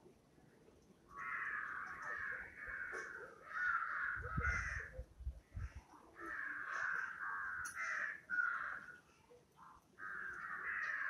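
Crows cawing in long harsh runs, three bursts with short pauses between them. A few low thuds come about four to five seconds in.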